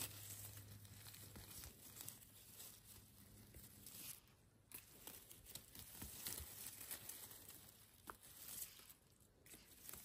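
Faint rustling and crackling of a person moving through forest undergrowth, with scattered small snaps and crinkles.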